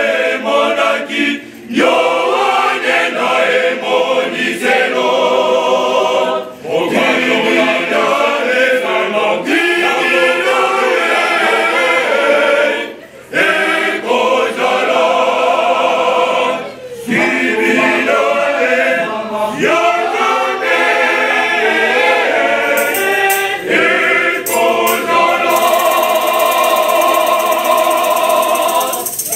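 Men's and boys' choir singing a gospel hymn, line after line with brief pauses between phrases; in the last few seconds a shaker adds a steady rattling hiss over the voices.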